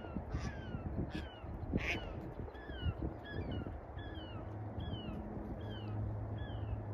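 A bird calling over and over in short calls that fall in pitch, about two a second, with a few short sharp knocks in the first two seconds.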